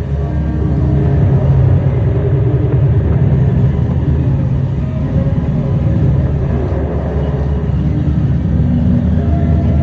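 Ambient electronic music: a heavy, continuous low drone with held notes above it that change every second or so.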